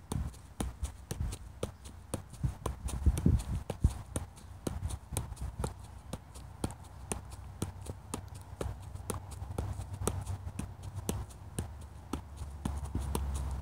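Soccer ball being juggled: a steady rhythm of quick, sharp taps as the ball is kept up off the feet without dropping.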